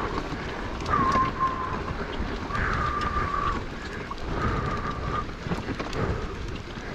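Two-stroke enduro motorcycle engine revving in three short bursts, each a held high note, over a steady rumbling noise.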